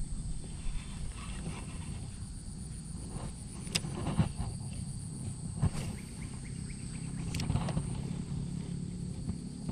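A few sharp clicks from a spinning reel and rod being handled during a cast and retrieve, over a steady low rumble and a constant high, thin whine.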